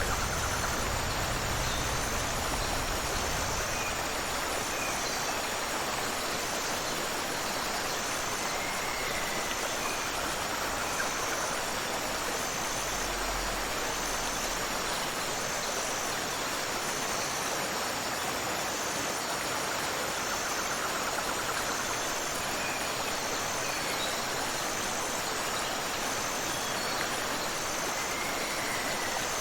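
Waterfall and river water rushing steadily, with a faint high chirp repeating evenly a little more than once a second.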